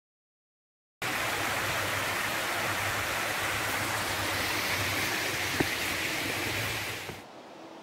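Creek water rushing steadily. It cuts in suddenly about a second in and drops to a much quieter hiss near the end. A single sharp click comes at about five and a half seconds.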